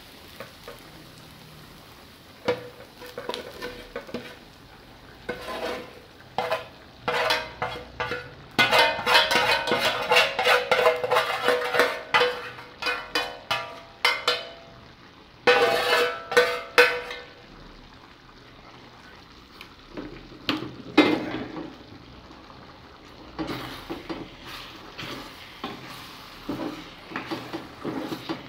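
A spoon scraping fried sausage slices out of an enamel skillet into an enamel pot, with quick runs of scrapes and clanks of enamelware ringing against each other. Near the end there is lighter stirring in the pot.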